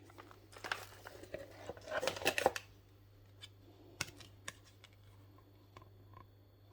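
A parcel being opened by hand: about two seconds of scratchy cutting and tearing at the packaging, then a few separate sharp clicks.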